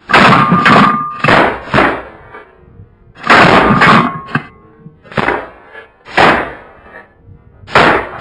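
A string of shotgun blasts from several hunters firing at incoming snow geese: about eight to ten loud shots over eight seconds, some close together and some spaced a second or more apart.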